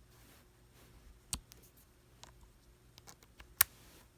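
Light clicks and taps from handling a MagSafe 2 charging connector, with a sharp click about a second in and a louder one near the end.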